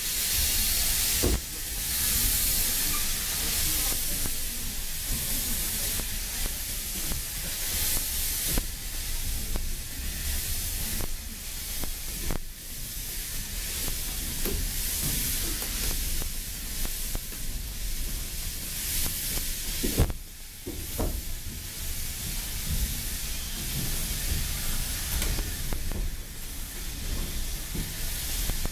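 Steam locomotive venting steam in a loud, steady hiss that engulfs the train, over the low rumble of the moving carriage, with a few sharp knocks.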